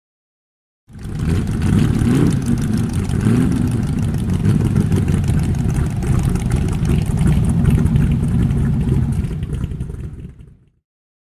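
Vintage car engine running, its pitch rising and falling a couple of times as it is revved, then fading out near the end.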